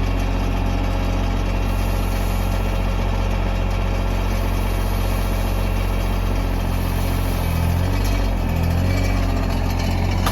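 Tractor engine running steadily, its pitch dipping and rising briefly about three-quarters of the way through.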